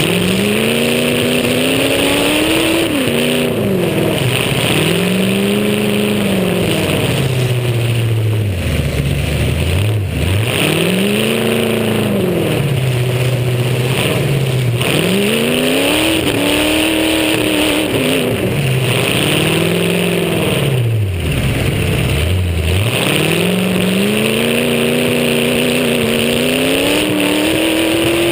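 Demolition derby car's engine, heard up close on the car, revving up and falling back again and again, its pitch climbing and dropping every few seconds and sinking nearly to idle twice.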